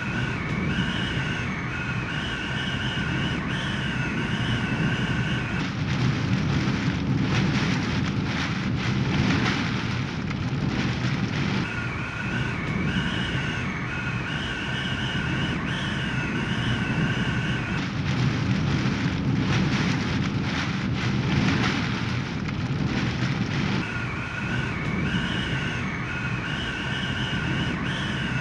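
Hurricane-force wind and heavy rain making a steady loud rush with a deep rumble. A wavering high whistle comes and goes about every six seconds.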